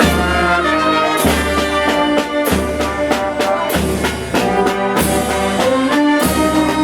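Brass band music: trumpets and trombones playing a melody over a low bass line that steps to a new note about every second and a quarter, with a steady drum beat.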